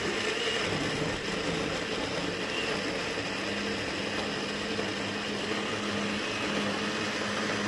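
Electric blender motor running steadily at speed, grinding chopped lemons with water into juice: an even whirring hum.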